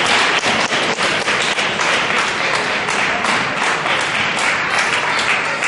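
Audience applauding: dense clapping from a small crowd that eases off near the end.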